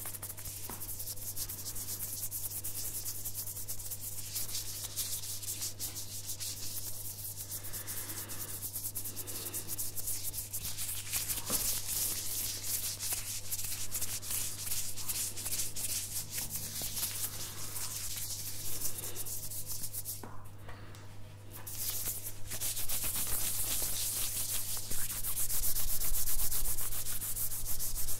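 Hands in a clear disposable plastic glove rubbing together close to the microphone, a dense crackly rustling. It breaks off briefly about two-thirds of the way in, then comes back louder toward the end, over a steady low hum.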